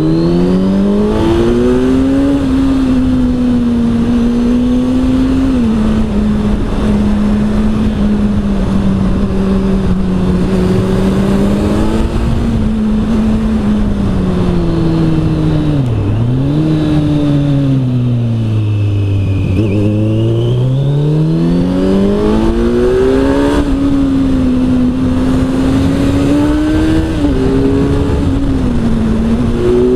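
Kawasaki Z900's 948 cc inline four-cylinder engine through an Arrow exhaust, heard while riding. The note rises at the start and holds steady under throttle. Around the middle it drops, dips sharply, and sinks low as the bike slows, then climbs again and holds steady, with small dips near the end.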